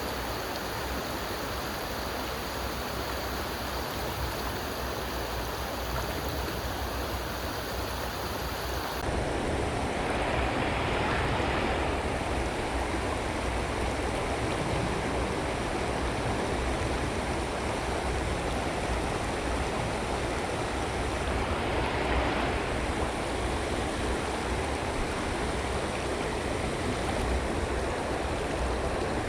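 Creek water running steadily over rocks, a continuous rushing noise whose tone shifts slightly about nine seconds in.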